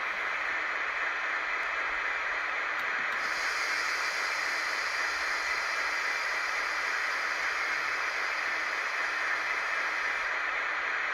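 Sound output of a DCC-sound-fitted N gauge Dapol Class 56 locomotive model, played through two small 10 x 25 mm bass speakers in its roof: a steady hiss with no clear engine beat. A brighter, sharper hiss joins about three seconds in and drops away near the end.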